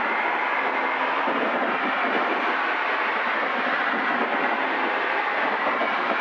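Steady, even drone of a Zenith CH750 Cruzer's engine and propeller in level flight, heard inside the cockpit.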